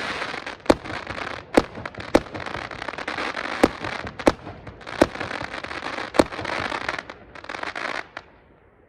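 Fireworks display going off: a dense, steady crackle broken by sharp bangs every second or so. It cuts off suddenly near the end.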